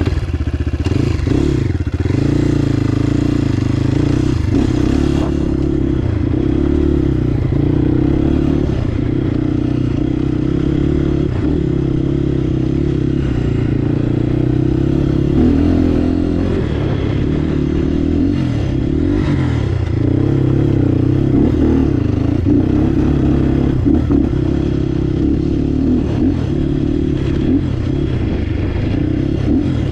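Crossfire HJ250 dirt bike's engine running at low, fairly even revs while riding over a rough, stony dirt track, with rattling and knocks from the bike over the stones.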